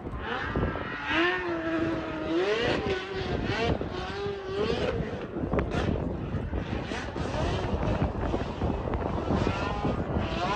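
A car engine revving, its pitch rising and falling, over loud, steady noise.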